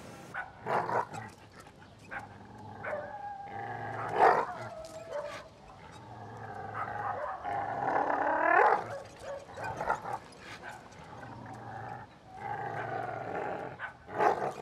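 A dog growling as it jumps and bites at a tyre hanging from a rope, the growl rising and wavering, with a few sudden sharp sounds, the loudest about four seconds in.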